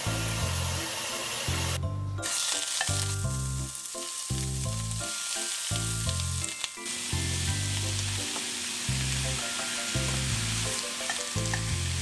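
Cubed pork belly sizzling in a hot stainless-steel pan as it is scraped in and stirred with a metal slotted spatula. A bass-heavy background music track plays underneath.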